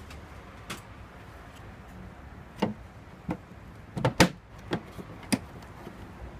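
Plastic Systainer tool case being shut and latched by hand: a string of sharp plastic clicks and knocks from the lid and the red front latch, the loudest a quick double click about four seconds in.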